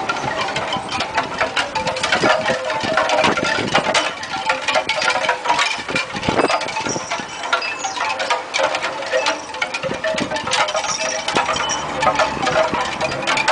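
Small metal collar tags and charms jingling and clinking rapidly as two small dogs tug and tussle over a toy, over a steady hum.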